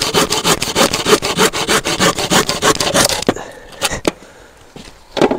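Hand saw cutting through a piece of wood with fast, even back-and-forth strokes, stopping about three seconds in. A few wooden knocks follow, one louder just before the end.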